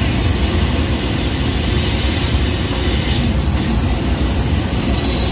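Open-sided studio tour tram moving along a road: a steady rumble from the tram cars running.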